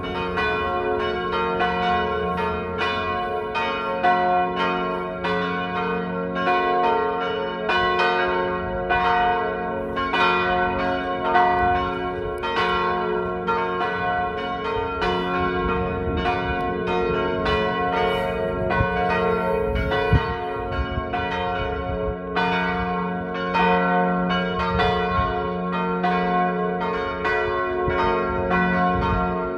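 Three swinging church bells, tuned to G-flat, B-flat and D-flat, ringing together in a full peal, their strokes coming about twice a second and overlapping so the tones ring on continuously.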